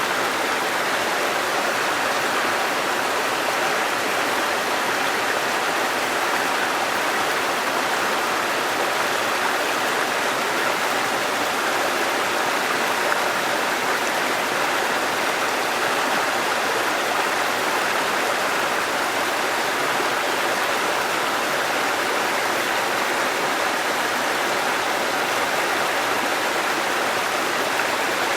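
Waterfall and running stream water rushing in a steady, unbroken wash.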